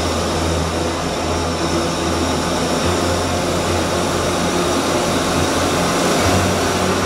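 Aircraft noise in flight: a steady rushing of engine and airflow, with a low drone underneath that fades briefly about three seconds in and again near the end before returning.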